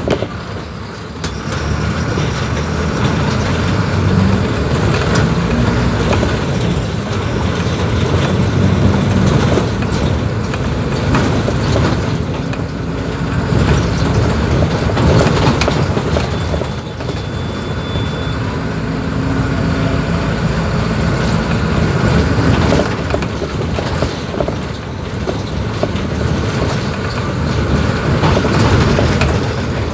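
Mercedes-Benz OF-1721 BlueTec 5 bus's four-cylinder diesel engine running while the bus is moving. The engine note rises and falls, over a steady clatter of body rattles and road noise.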